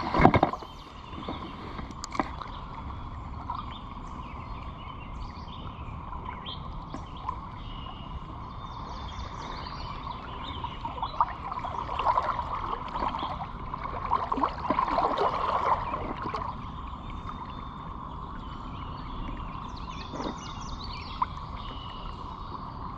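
Creek water running steadily over rocks, with a low rumble of wind on the microphone. A sharp loud knock or splash comes right at the start, and the water gets louder and more uneven for a few seconds in the middle.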